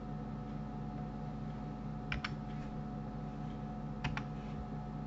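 Two keystrokes on a computer keyboard, one about two seconds in and one about four seconds in, each a quick pair of clicks. Under them runs a steady low electrical hum.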